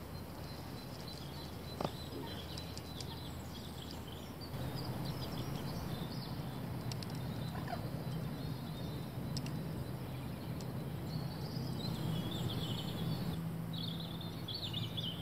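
Outdoor ambience with small birds chirping faintly, over a low steady hum that comes in about four seconds in.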